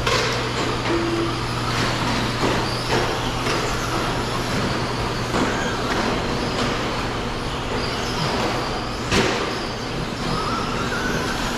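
Traxxas Slash electric short-course RC trucks racing on a dirt track: a mix of motor whine and tyre noise, with scattered sharp clacks of trucks landing and bumping, the loudest about nine seconds in. A motor's whine rises near the end.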